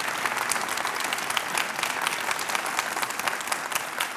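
Theatre audience applauding: many hands clapping at once in a steady patter that begins to thin out near the end.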